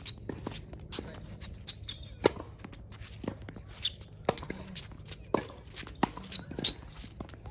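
Tennis rally on a hard court: sharp pops of the ball off the strings and off the court, about one to two a second, the loudest about two seconds in. Between the hits come footsteps and short high shoe squeaks on the court surface.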